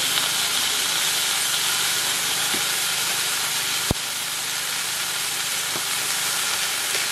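Steady hiss of food cooking in a pot or pan, with one sharp click about four seconds in.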